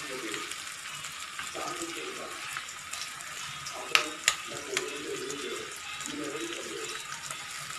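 Onion-tomato masala sizzling steadily in a steel wok, with two sharp taps about four seconds in.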